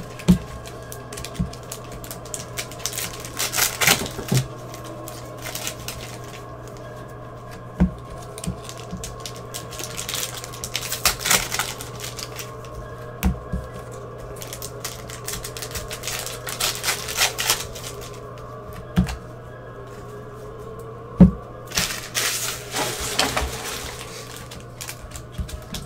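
Gloved hands opening and sorting football trading-card packs: scattered sharp taps of cards on the table and several brief rustling bursts as wrappers and cards are handled, over a steady low hum.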